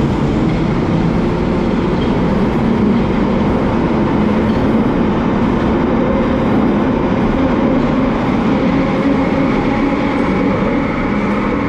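Bakerloo line 1972 Stock tube train running, a loud, steady rumble of wheels and traction motors with a constant drone.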